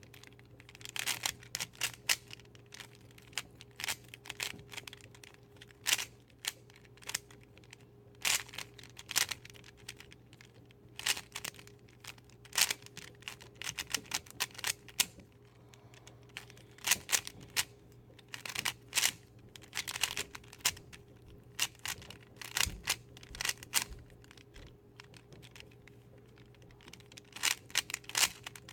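A 3x3 Rubik's Cube being turned fast during a CFOP speedsolve: quick runs of plastic clicks and rattles as the layers turn, broken by short pauses.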